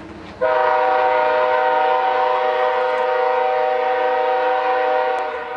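Locomotive air horn on the CP Holiday Train sounding one long, loud, steady chord of several notes. It starts about half a second in and trails off near the end.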